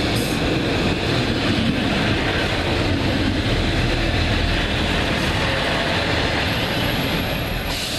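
Class 142 Pacer diesel multiple unit, coupled to a second unit, running past close by along the platform: a steady, loud mix of diesel engine and wheels on the rails, easing slightly near the end.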